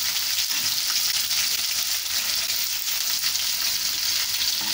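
Food frying in oil in a pan on a gas stove, a steady sizzle.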